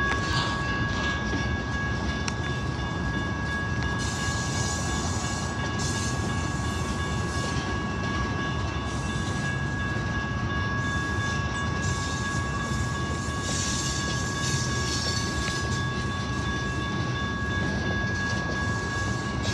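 Freight cars loaded with lumber, with tank cars among them, rolling steadily past on the rails: a continuous rumble and clatter of wheels on track. Two steady high tones ring unbroken through it.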